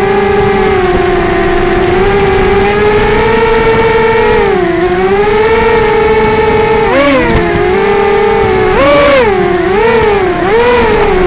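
Peon230 quadcopter's Emax 1804 2300kv brushless motors spinning 5x3 propellers: a steady, high-pitched whine that dips and rises gently for the first half, then swings sharply up and down several times as the throttle is worked, from about seven seconds in.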